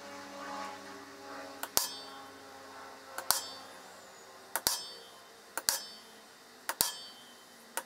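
Hammer tapping a metal punch on a 10 mm aluminium plate to mark hole centres for drilling: about five sharp metallic taps roughly a second apart, several of them struck twice in quick succession.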